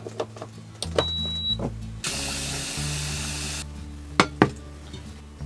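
Induction cooktop being plugged in and switched on: a few plastic clicks, then a short high electronic beep about a second in. A hiss lasting about a second and a half follows, and near the end a stainless steel saucepan of water is set down on the glass top with two sharp knocks, over soft background music.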